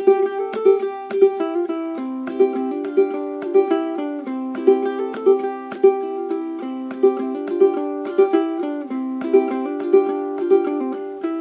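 Solo ukulele played clawhammer style, a lively tune of brisk plucked notes with regular strummed attacks.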